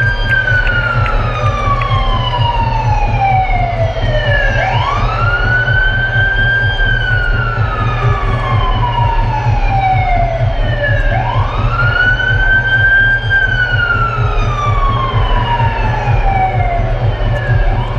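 Siren-like wailing sound effect from a concert sound system, played over a heavy, pulsing bass. The wail rises quickly and sinks slowly over about four seconds, and repeats about every six seconds, three times.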